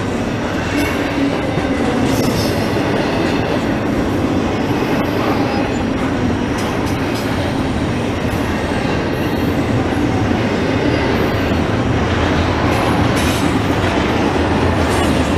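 Double-stack intermodal well cars rolling past: a steady, heavy rumble of steel wheels on rail, with scattered sharp clicks as the wheels cross rail joints and a few faint, brief high-pitched wheel squeals.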